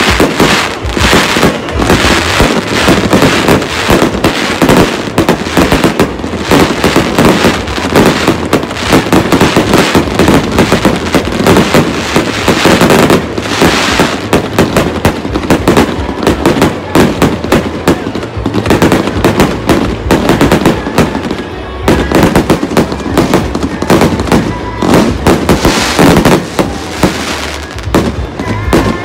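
Set-piece fireworks (shikake hanabi) throwing up fountains and bursts of sparks: dense, continuous crackling and popping, with a short lull about three-quarters of the way through.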